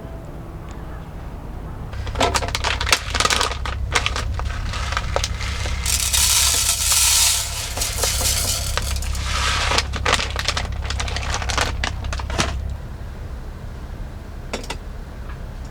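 Clinks, clicks and knocks of hard objects being handled, with a short rush of hissing noise about six seconds in, over a low rumble; it dies away about three seconds before the end.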